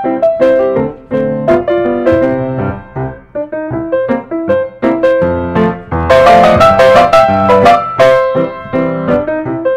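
Background piano music: a run of single notes and chords, growing fuller and louder for a couple of seconds past the middle.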